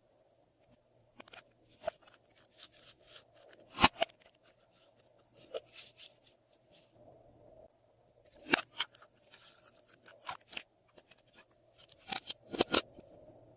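Glossy slime being worked by hand, with irregular sticky clicks, crackles and pops; the loudest snaps come about four, eight and a half, and twelve and a half seconds in.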